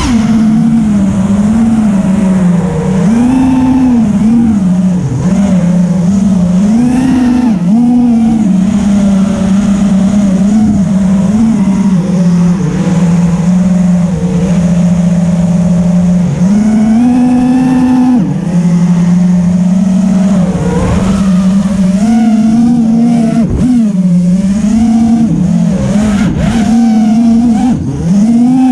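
Eachine Wizard X220 FPV racing quadcopter's brushless motors and propellers buzzing in flight, the whine rising and falling in pitch over and over as the throttle changes, with a few sudden dips in the second half.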